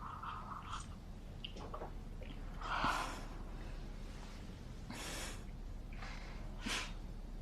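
A few short breaths, the loudest about three seconds in, over quiet room tone.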